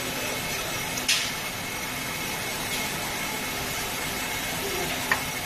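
Automatic pleating machine of a cabin-filter production line running steadily, a steady mechanical noise with a faint low hum, as its screw rollers fold filter media into pleats. A short hiss comes about a second in and a sharp click near the end.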